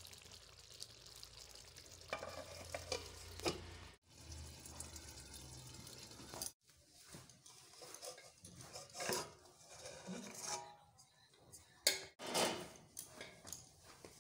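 Curry gravy sizzling in a metal kadhai, a steady hiss for the first few seconds. After that come irregular scrapes and clinks of steel cookware, the sharpest clink about twelve seconds in.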